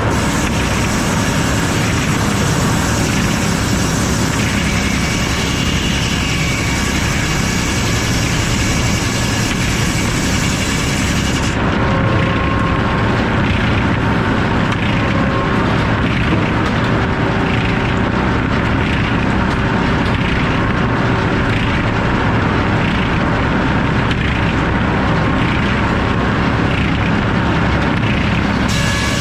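Circular sawmill's F-pattern inserted-tooth head saw running with the mill machinery, a loud steady din. The bright hiss on top cuts off sharply about twelve seconds in and comes back just as sharply near the end.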